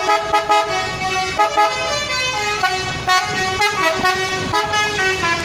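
Indonesian 'telolet' musical bus air horns playing a fast multi-note tune, several tones sounding together and stepping to new notes a few times a second.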